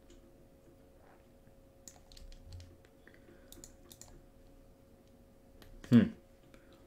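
Computer mouse and keyboard clicks, a string of them between about two and four seconds in, over a faint steady hum. Near the end comes a short voiced grunt that falls in pitch, the loudest sound.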